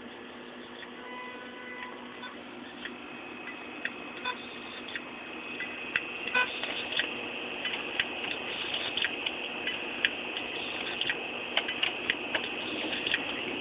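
Desktop computer running at boot with a hard drive inside: a steady hum under irregular clicks and ticks. From about six seconds in the clicks come faster and louder.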